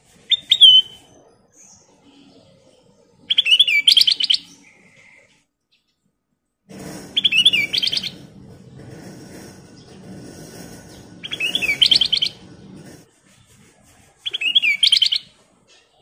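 Caged black-capped bulbul (kutilang emas) singing: five short loud phrases, about three to four seconds apart, each a swooping whistled note followed by a quick run of notes. A low rumble runs underneath the middle phrases.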